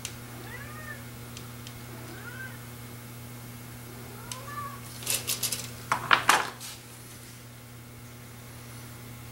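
A cat meowing softly three times, each call a short rise and fall in pitch. About five seconds in comes a short run of sharp clicks and clinks from small parts being handled on the workbench, the loudest sounds here.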